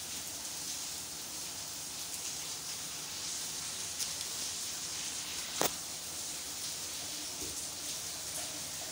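Steady sizzling hiss of a pot of egusi soup cooking on a gas stove, with light crinkling as a Maggi seasoning cube is unwrapped and crumbled in. There is a single sharp click about five and a half seconds in.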